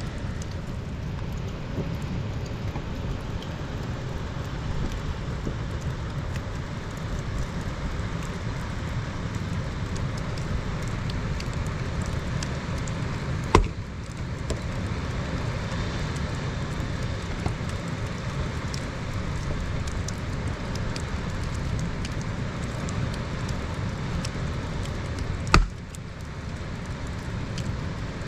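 Steady rain, heavy at the low end, with two sharp knocks: one about halfway through and one near the end.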